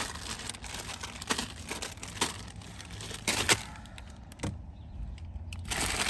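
Packaged groceries being handled and set onto a pantry shelf: plastic wrappers crinkling, with a handful of short light knocks as items are put down.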